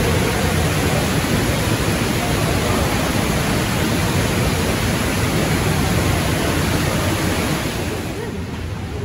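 Rushing water: a loud, steady hiss that eases off about eight seconds in.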